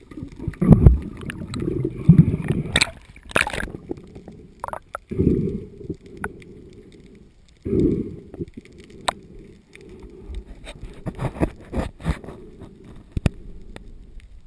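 Underwater sound through a camera's waterproof housing: irregular muffled gurgling and rumbling surges of water movement, with scattered sharp clicks and knocks.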